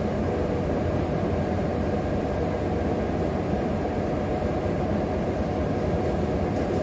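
Steady low room noise, a constant drone with no distinct events.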